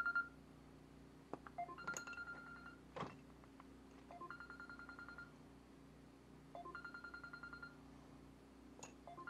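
Faint electronic beeper repeating the same pattern about every two and a half seconds: two short stepped notes, then a fast-pulsing high beep for about a second, over a steady low hum. There is one sharp click about three seconds in.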